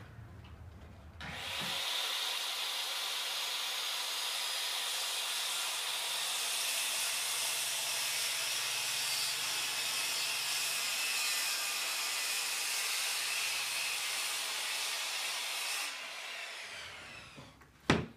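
Handheld circular saw cutting through a sheet of plywood: the saw starts cutting about a second in, runs at a steady pitch for about fifteen seconds, then dies away. A single short knock comes near the end.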